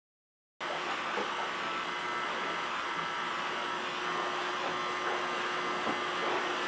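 A small motor running steadily with a constant hum, cutting in abruptly just after the start.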